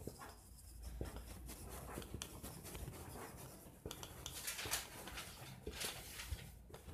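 Marker pen writing on a whiteboard: faint, irregular scratching strokes as a word is written out.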